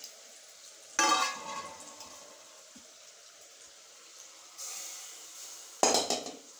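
Metal cookware clanking twice, once about a second in and again near the end, each with a short metallic ring that dies away. A soft hiss comes in between them.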